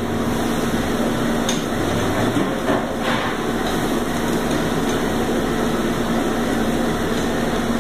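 Diced skirt steak sizzling on a flat-top griddle while a metal utensil chops and scrapes it, with a couple of sharp metal clicks on the plate about a second and a half and three seconds in, over a steady low hum.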